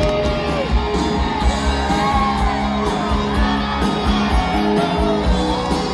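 Loud music playing with a crowd cheering and whooping over it.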